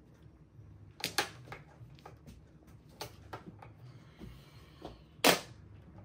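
Mahjong tiles clacking as they are set down and discarded on the table: scattered sharp clicks, with one much louder clack near the end.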